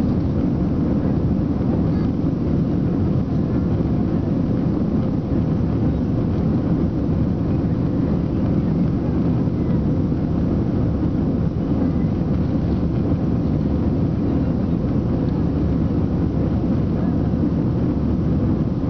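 Steady cabin noise of an Airbus A320 climbing after takeoff: jet engines and rushing air heard from a window seat, an even low rumble with a faint steady hum above it.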